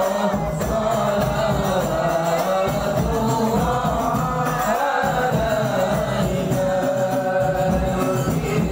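A congregation of men singing sholawat, devotional Arabic praise of the Prophet Muhammad, together and without a break.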